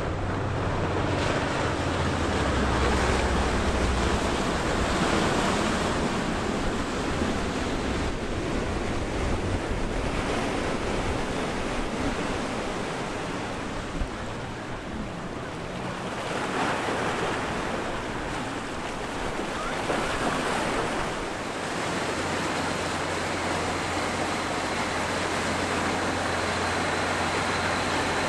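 Water rushing from the wakes and bow spray of large sportfishing yachts running through an inlet, with wind buffeting the microphone. A low, steady engine drone comes up near the end.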